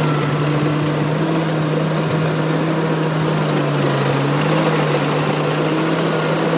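Engine of a rice harvesting machine running steadily under load, with a hum whose pitch dips slightly about four seconds in, over a noisy mechanical rush.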